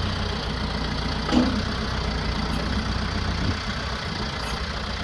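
Branson F Series compact tractor's diesel engine idling steadily while the backhoe arm is lowered to the ground, with one short clunk about a second in.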